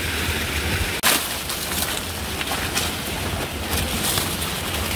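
Steady hiss of monsoon rain, with a low wind rumble on the microphone. There is a sharp knock about a second in.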